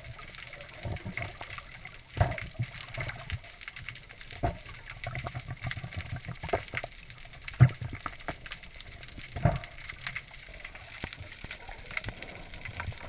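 Muffled underwater bubbling and gurgling from a scuba diver's exhaled breath, in irregular spells of a second or two. Sharp clicks and knocks from the camera housing are mixed in, the loudest about two, seven and a half and nine and a half seconds in.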